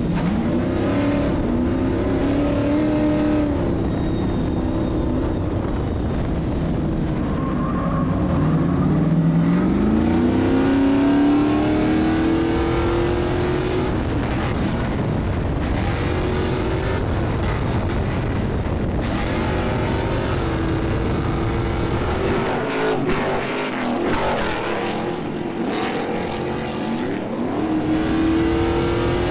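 Stadium Super Truck's V8 engine heard from inside the cab at racing speed, its revs climbing and dropping through gear changes and braking, with one long climb in pitch from about eight seconds in. About three-quarters of the way through, a run of sharp knocks and rattles breaks in.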